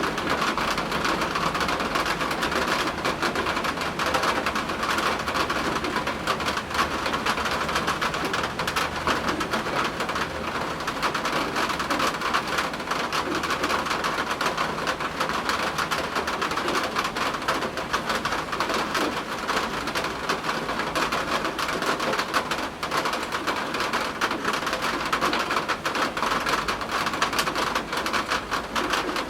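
Steady rain: a dense, even patter of many drops, with a low rumble underneath.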